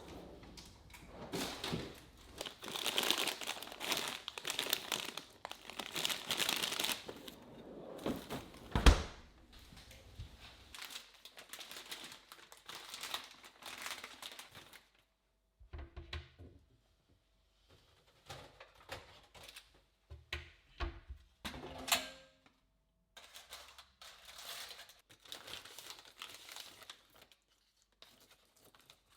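Packaging being handled and unwrapped: crinkling and tearing, with one sharp knock about nine seconds in and scattered clicks and knocks after.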